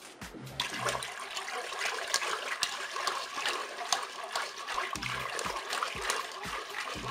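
Wire whisk stirring a milk, flour and sugar mixture in the non-stick bowl of a Cookeo multicooker. The liquid sloshes and the whisk's wires click against the bowl, starting about half a second in.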